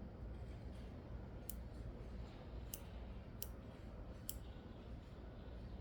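Four small, sharp clicks, spaced roughly a second apart, from small tools and knife parts being handled while a folding knife is taken apart, over a low steady background hum.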